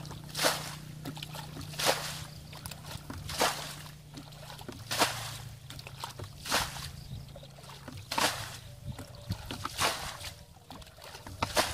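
Water bailed out of a shallow muddy ditch with a bucket: a scoop and splash as each bucketful is thrown out, about every one and a half seconds, eight times.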